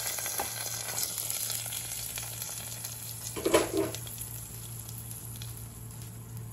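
Hot oil tempering of mustard seeds, green chilli and curry leaves sizzling as it hits a pot of sambar, the hiss fading away over the first few seconds. A short knock about three and a half seconds in, over a steady low hum.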